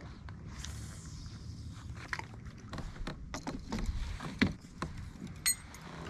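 Clicks and knocks of fishing tackle being handled aboard a kayak, the loudest a sharp knock about four seconds in, with a short squeak near the end, over a low rumble.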